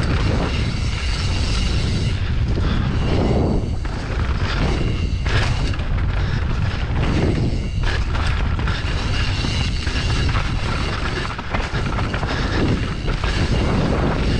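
Mountain bike descending a dirt forest trail, recorded on a GoPro: steady wind rumble on the microphone over tyre noise on the dirt, with scattered knocks and rattles of the bike over bumps.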